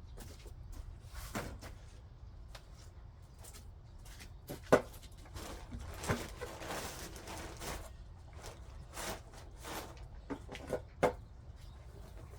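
Hand tool scraping and chopping into soil: irregular scrapes and knocks, the sharpest strikes about five seconds in and near the end.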